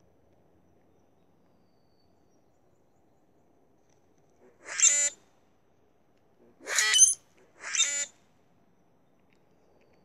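Male common grackles giving three short songs, the second about two seconds after the first and the third a second later, the middle one loudest. The songs go with a display, the singer puffing out its feathers.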